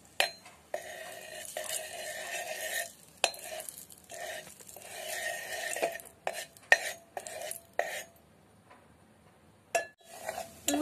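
A metal spoon stirring and scraping around a stainless steel pot, stirring turmeric into hot oil. The pot rings under the spoon, with sharp clinks. The stirring stops briefly near the end, then a clink and scraping start again.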